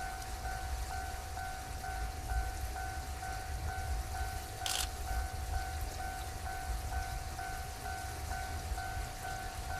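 Japanese railway level crossing alarm ringing: an electronic bell tone repeating about three times a second, over a low rumble. A brief hiss cuts in about five seconds in.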